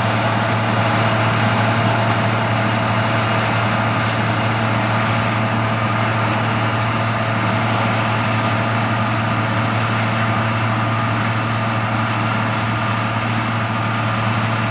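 1975 Claas Senator 85 combine harvester running steadily under load while harvesting wheat. Its six-cylinder diesel engine gives a constant drone over the mechanical noise of the threshing drum, walkers and straw chopper chopping the wheat straw.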